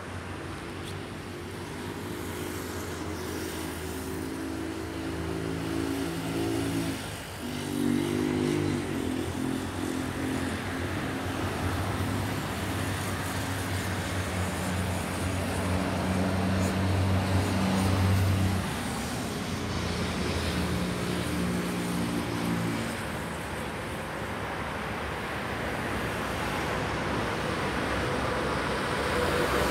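A motor vehicle's engine running nearby amid road traffic, its hum holding steady pitches that shift in steps, dipping briefly about seven seconds in, then fading into general traffic noise about two thirds of the way through.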